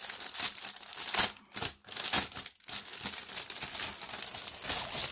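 Clear plastic packaging bag crinkling and rustling in the hands as it is opened to unwrap a planner cover, an irregular crackle with louder bursts about one and two seconds in.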